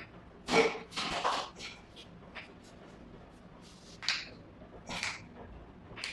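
Short rustling and shuffling sounds of hands moving over a patient's body and clothing during a chiropractic adjustment. There are five or so brief bursts, the loudest about half a second in.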